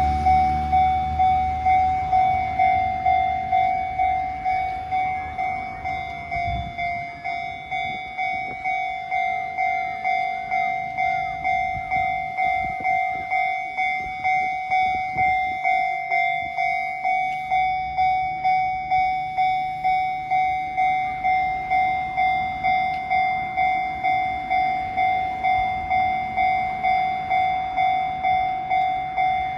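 Japanese railway level crossing alarm ringing, an even electronic ding repeated about one and a half times a second. A train rumbles and clatters over the rails past the crossing around the middle.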